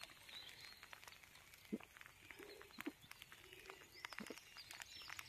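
Near silence, with faint gulps of a man drinking from a metal beverage can and scattered faint ticks.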